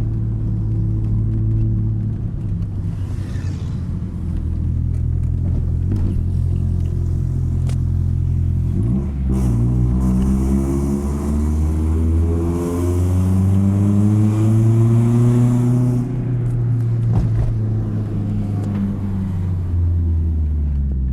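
BMW E36 Compact engine idling through a JK aftermarket exhaust, then revved about nine seconds in, the pitch climbing gradually for several seconds before dropping back to idle near the sixteen-second mark.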